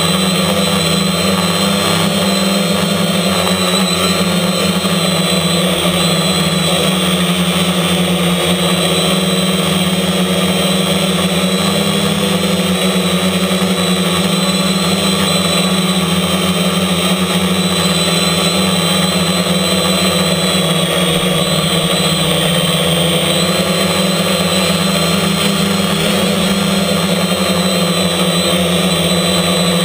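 Storm Drone 4 quadcopter's electric motors and propellers whirring steadily, heard close up from the camera mounted on the drone, with a strong low hum.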